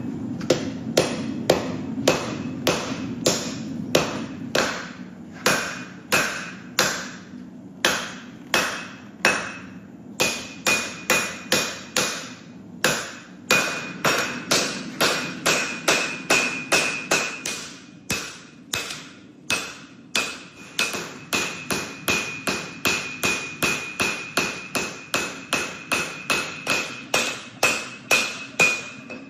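Hammer blows on steel at an anvil, about two a second and slightly quicker in the second half, with a high metallic ring on each blow from about ten seconds in.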